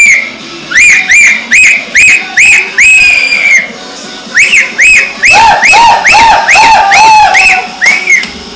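Loud, sharp whistling in short arched notes, about three a second, in two runs with a brief break about halfway through. For several notes near the end, a second, lower whistle sounds alongside.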